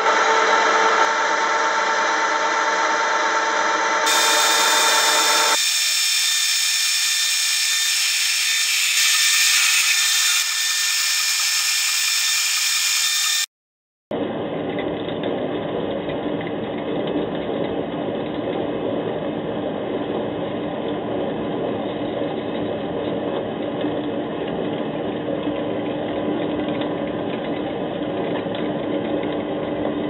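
Metal lathe running while machining spacers, ending in a large twist drill boring into the spinning workpiece: a steady machine drone with cutting noise. The sound changes abruptly a few times in the first half, with a short dropout to silence a little under halfway through, before the long steady drilling run.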